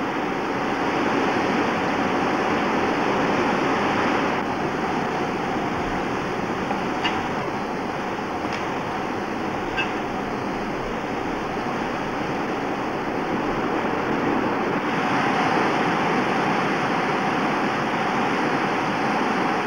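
River rapids rushing: a steady, continuous sound of churning whitewater, with a few faint clicks about halfway through.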